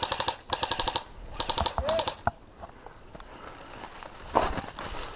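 Airsoft guns firing three quick full-auto bursts of rapid, evenly spaced snaps in the first two seconds, then a single shot, after which the firing stops.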